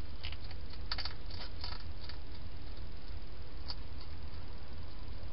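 Wild hedgehog eating at a feeding dish: a quick run of small crunching clicks during the first two seconds and one more a couple of seconds later, over a steady low hum.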